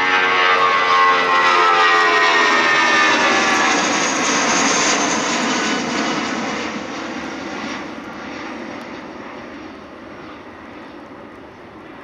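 Twin turbofan engines of an Airbus A320-family airliner at takeoff thrust as it climbs out overhead. The engine whine slides down in pitch as the jet passes, then a broad jet rush slowly fades as it climbs away.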